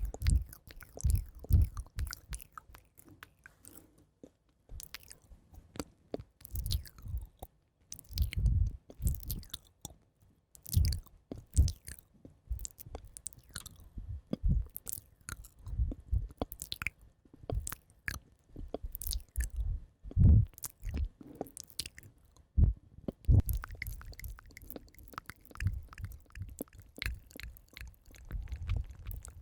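Close-miked ASMR trigger sounds: irregular crisp clicks and soft low thumps, with no notes played.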